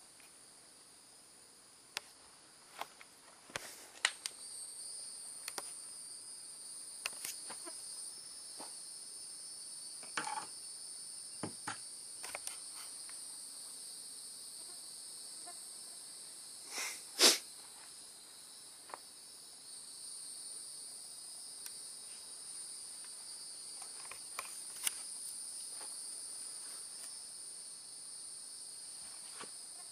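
Insects, crickets or similar, trilling steadily and high-pitched, setting in a few seconds in and fading briefly past the middle before returning. Scattered clicks and knocks come through, the loudest a sharp knock about 17 seconds in.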